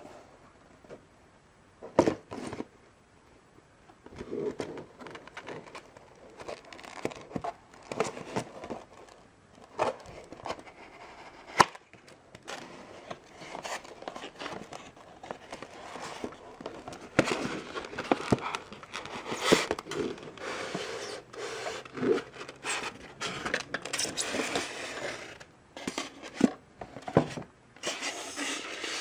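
A cardboard box being opened by hand: the flaps and a white foam packing insert rub and scrape, with scattered sharp clicks and taps. The handling is sparse at first and gets busier and more continuous in the second half.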